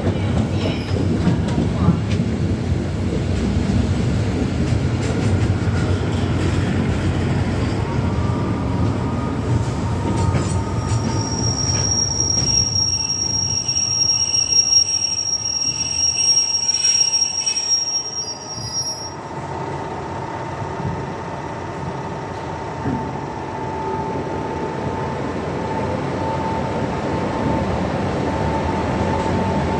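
Railhead treatment train of tank wagons hauled by Class 73 electro-diesel locomotives running through a station: heavy rumble and clicking of wheels over the rail joints, with high-pitched wheel squeal from about twelve to nineteen seconds in. After that it is quieter with a steady hum, growing louder near the end as a locomotive approaches.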